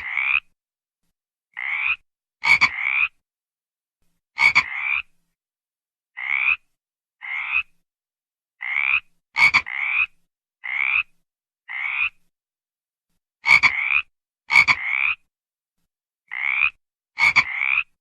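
A frog calling over and over with short rasping croaks, each about half a second long and rising a little in pitch. They come roughly once a second, often in pairs, and many open with a sharp click.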